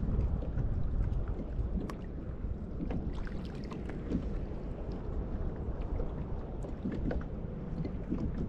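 Wind rumbling on the microphone over a kayak on open water, with water lapping at the hull and scattered faint clicks.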